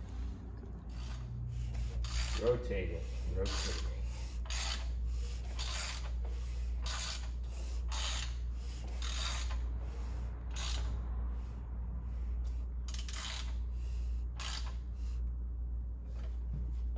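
Pistons with new rings scraping in the cylinder bores as the Dodge Daytona's four-cylinder short block, cylinder head off, is turned over slowly by hand to check that it rotates freely. Short rasping strokes come roughly once a second, over a low steady hum.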